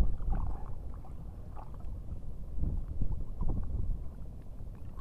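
Wind rumbling on the microphone over water lapping, with a few small splashes as two hooked small groupers are held at the water's surface.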